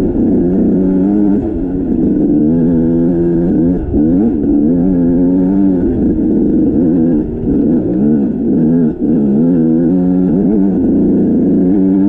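Dirt bike engine running hard, its pitch repeatedly rising and falling as the throttle is worked.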